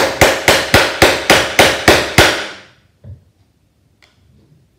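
A hammer tapping a brass fret caul to drive fret wire into a guitar fingerboard: a steady run of sharp, ringing metal-on-metal taps, about four a second, that stops a little over two seconds in.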